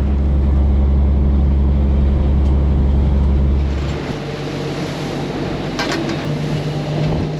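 Charter fishing boat's engine running with a steady low drone that drops off about four seconds in, leaving a lower, steady engine hum.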